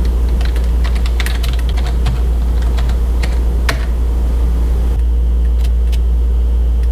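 Typing on a computer keyboard: a quick run of key clicks over the first four seconds, then a few single keystrokes, over a steady low hum.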